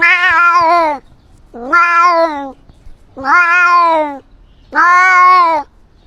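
Domestic cat meowing four times, long wavering meows of nearly a second each, at an even pace of about one every one and a half seconds.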